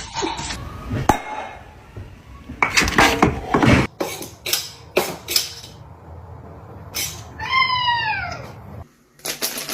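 A cat meows once near the end: a single drawn-out call that rises a little and then falls. Several short, sharp clicks or knocks come before it and a few more after it.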